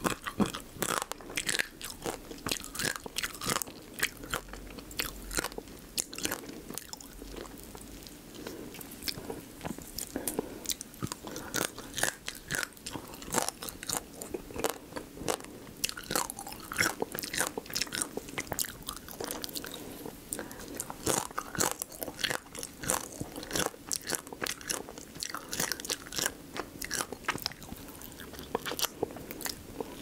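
Close-miked eating of spicy marinated raw crab: crunching through soft crab shell and wet chewing, with many quick, irregular crackles.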